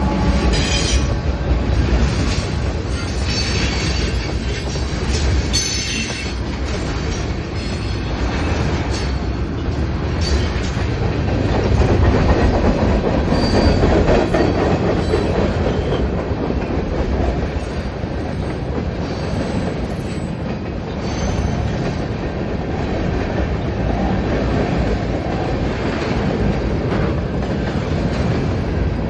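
A train rolling past: a steady rumble of wheels on the rails, with clicking over the rail joints and brief high wheel squeals. A train horn cuts off right at the start.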